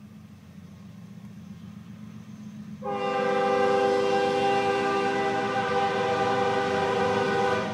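CSX diesel locomotive's multi-chime air horn sounding one long, steady blast, beginning about three seconds in and lasting nearly five seconds, over the rising rumble of the approaching train. The horn is sounded as the train nears the grade crossing.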